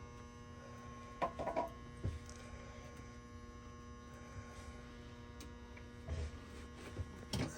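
Steady electrical hum with a few light clicks, as of parts or tools being handled, about a second in and again near the end.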